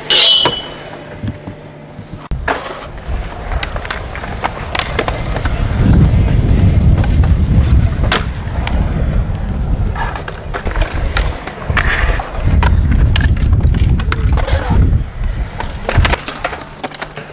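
Skateboard and stunt-scooter wheels rolling over concrete in two long stretches, broken by sharp clacks of decks and wheels hitting the ground. It opens with a ringing metal clank as a scooter meets a handrail.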